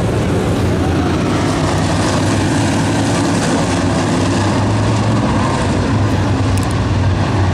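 A field of dirt-track modified race cars lapping the oval, their V8 engines a steady, continuous drone.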